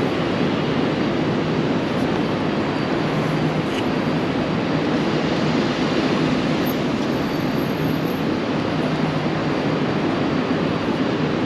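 Steady, unbroken city street noise: an even rumble with no distinct events.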